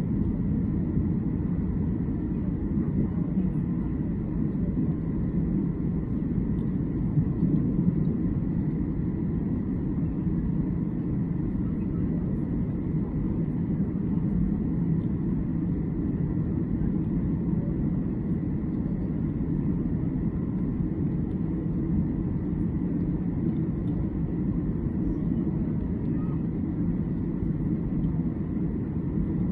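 Steady jet airliner cabin noise from inside a Boeing 737: a constant low rumble of engines and airflow with a faint steady hum above it.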